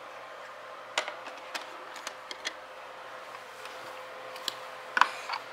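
Scattered light clicks and taps of plastic toy pieces being handled, a handful spread across a few seconds, over a faint steady hum.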